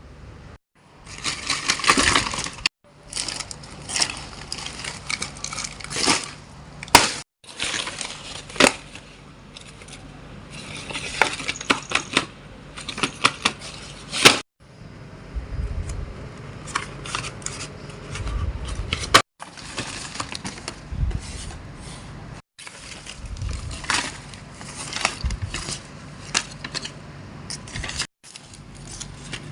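A series of short segments, cut abruptly one into the next, of clicks, rustles and clattering from objects being handled close to the microphone.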